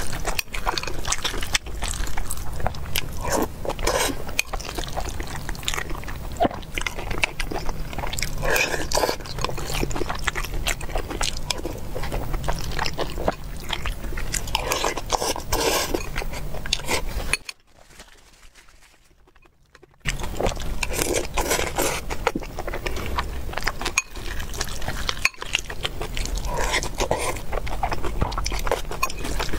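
Close-miked eating: chewing and smacking on mouthfuls of a saucy rice dish, with the clicks of a metal spoon against a glass bowl. The sound drops out to near silence for about two seconds a little past halfway.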